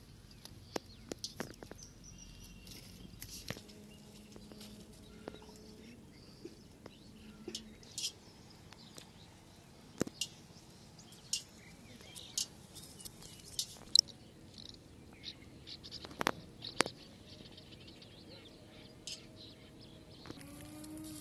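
Birds chirping, with short high calls scattered throughout and a few sharp clicks among them. Music comes in near the end.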